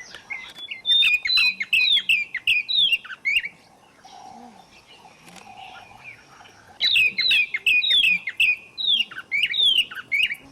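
A bird singing two bouts of short, falling notes, about three notes a second, with a pause of about three seconds between the bouts.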